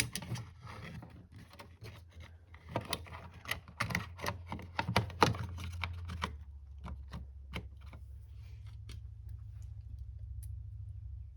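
Small hard parts and tools being handled on a workbench: a busy run of clicks, taps and light rattling, thinning to a few single clicks about six seconds in, over a steady low hum.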